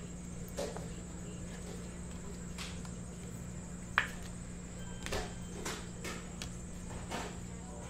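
Trading cards and a plastic card sleeve being handled: soft slides and light clicks, with one sharper click about four seconds in. Under it runs a steady low hum and a high whine.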